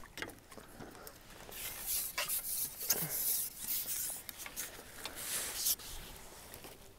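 Close rustling and rubbing in irregular bursts, with a few sharp clicks: a landing net with a caught roach in it being drawn in and handled.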